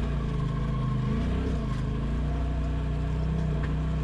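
Polaris RZR Pro XP side-by-side's engine running as it drives along, with a brief rise and fall in engine pitch about a second and a half in, then steady again.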